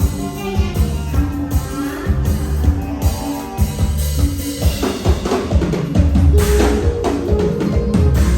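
Instrumental music with a steady drum-kit beat over sustained melodic tones; about five seconds in it gets fuller and brighter, with cymbal-like hits.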